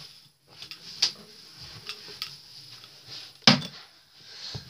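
Scattered knocks and clicks of things being handled and set down, with a sharp knock about a second in and the loudest knock about three and a half seconds in.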